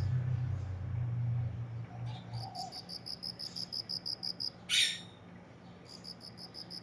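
A cricket chirping in a steady train of high pulses, about five or six a second, breaking off twice and starting again. A low rumble fades out in the first couple of seconds, and a short, sharp noise just under five seconds in is the loudest sound.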